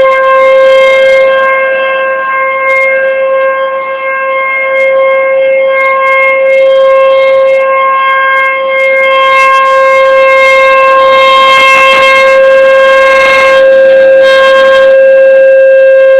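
Outdoor nuclear-emergency warning siren sounding a loud, steady single tone that neither rises nor falls, with its loudness wavering slightly in the first few seconds.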